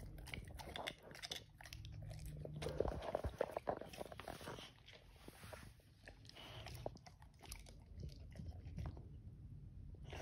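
Boxer dog biting and chewing a raw sugar snap pea pod, a run of irregular crunches that thins out near the end.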